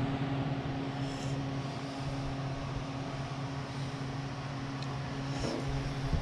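Steady low mechanical hum with an even hiss, unchanging throughout.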